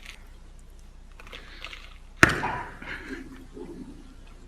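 Elephant biting into a whole watermelon: one sharp, loud crack about two seconds in as the melon breaks, followed by about two seconds of wet crunching and chewing that fades away.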